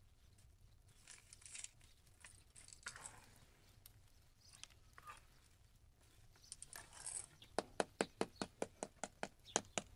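Stick raking and scraping through wood ash and embers, then a large ash-baked flatbread slapped repeatedly by hand to knock the ash off its crust, in quick even pats about three or four a second that start in the last few seconds.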